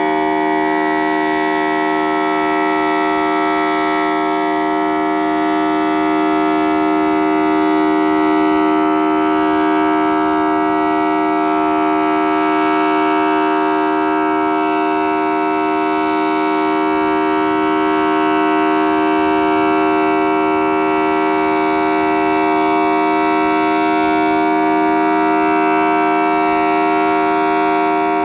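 Federal Signal Thunderbolt 1000T civil-defense siren sounding a steady alert tone at full pitch, its 4- and 5-port rotors giving a two-tone chord. The pitch does not rise or fall; the loudness only swells slightly now and then.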